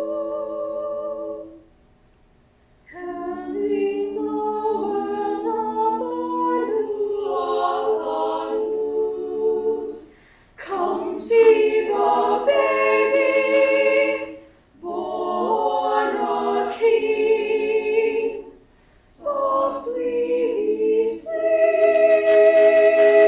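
A cappella choir singing in several voice parts, in phrases broken by short pauses, with a chord held near the end.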